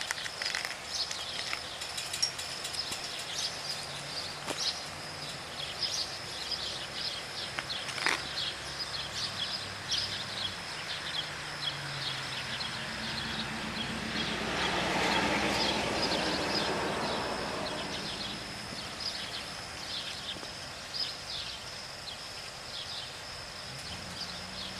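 Outdoor ambience of constant high-pitched chirping, with a vehicle passing by about 14 to 18 seconds in, rising and then fading away.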